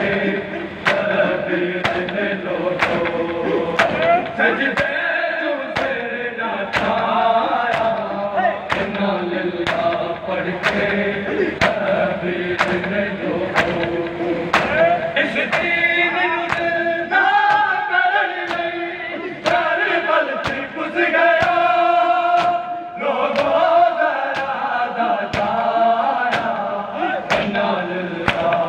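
Men singing a Shia noha (mourning lament), a lead voice and the crowd chanting together. Over it comes the steady beat of hands slapping bare chests in matam.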